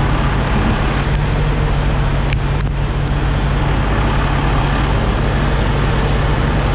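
A heavy diesel truck engine running steadily at a constant speed, with a strong low hum. There are a couple of faint ticks about two and a half seconds in.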